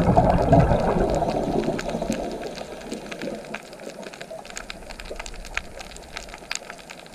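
Underwater sound: a rush of a diver's exhaled bubbles that fades away over the first two or three seconds. Then scattered sharp clicks and crackles over the coral reef.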